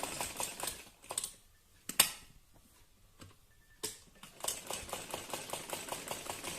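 Sewing machine stitching with a rapid, even run of needle clicks that stops about a second in. A few sharp knocks fall in the pause, the loudest about two seconds in. The stitching starts again about four and a half seconds in.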